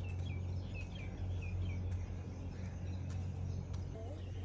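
Small birds chirping, a quick run of short falling notes in the first couple of seconds, over a steady low hum.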